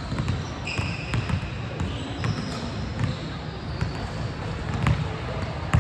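Basketball game in a gym: a ball bouncing on the court, with scattered sharp knocks and a few short high squeaks over a steady background murmur.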